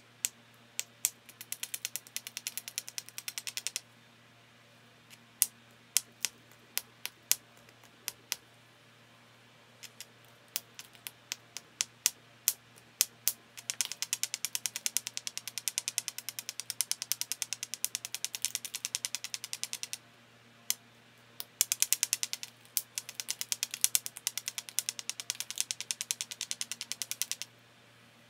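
A round stone scraped along the edge of a small Flint Ridge flint biface, abrading the edge: long runs of rapid scratchy clicks, with single sharper ticks between the runs.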